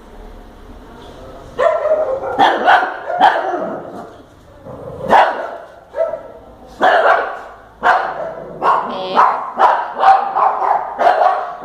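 Dog barking repeatedly, starting about a second and a half in, in bunches with short pauses and coming faster near the end.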